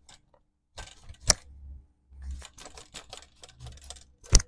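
Small clicks and taps of a laptop logic board and hand tools being handled on a workbench, with a sharp knock about a second in and two more close together near the end.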